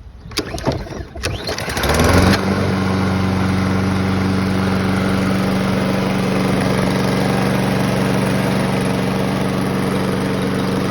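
Toro walk-behind lawn mower's small engine being pull-started: a few uneven pulls, then it catches about two seconds in with a brief surge and settles into running steadily.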